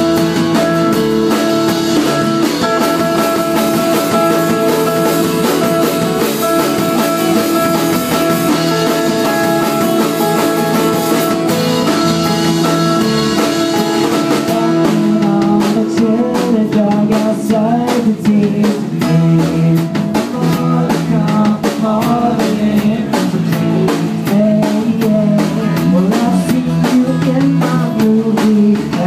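Live band music: strummed acoustic guitars over a drum kit, chords held steady for the first half. About halfway through a voice starts singing over the guitars and drums.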